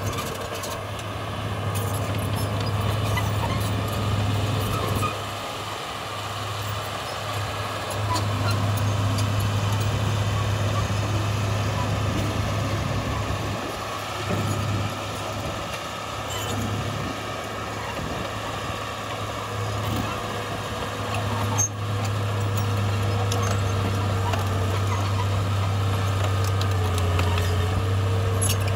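Heavy diesel earthmoving machinery running, a steady low engine drone that swells and eases several times, with scattered small knocks and clicks.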